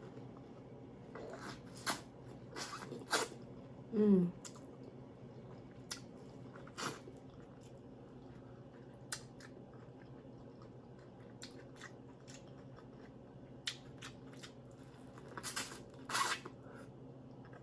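A person eating close to the microphone: scattered wet smacks and chewing clicks, with a short falling "mm" about four seconds in.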